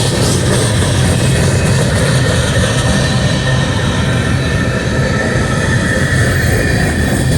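Diesel freight locomotives running past with a steady, heavy, low engine rumble.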